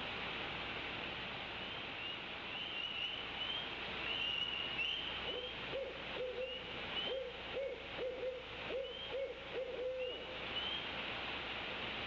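An owl hooting in a rhythmic series of about ten short hoots, roughly two a second, starting about five seconds in.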